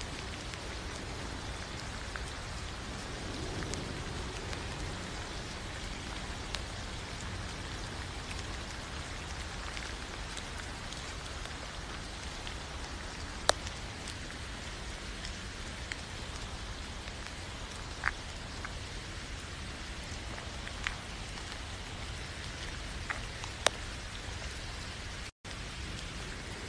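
Steady rain falling, with a few sharper single drop taps every few seconds. The sound cuts out for a split second near the end.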